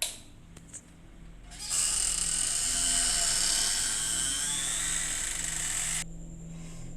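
A click, then a loud high whirring hiss that starts about two seconds in, holds steady with a faint slightly rising whine inside it for about four seconds, and cuts off suddenly.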